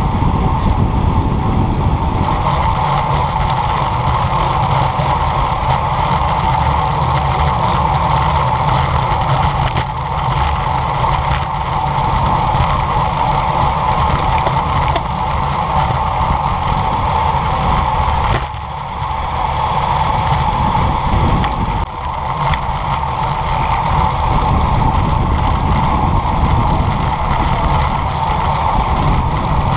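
Steady wind rush and road rumble from a camera riding on a moving road bike, with two brief dips about two-thirds of the way through.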